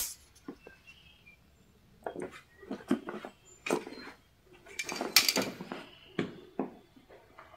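Irregular short scuffs, taps and clicks, a handful of separate bursts with quiet gaps between them.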